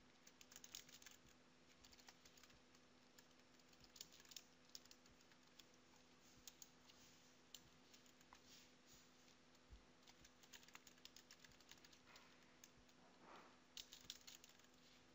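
Faint computer keyboard typing: irregular key clicks, in short runs of quick keystrokes, over a faint steady electrical hum.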